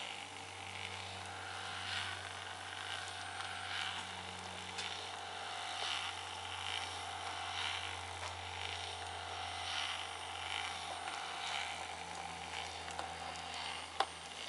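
Small geared motor and gearing of a model's animation running, with a steady low hum and a faint mechanical chatter that swells and fades about once a second; the noise comes from the little gearing. One sharp click near the end.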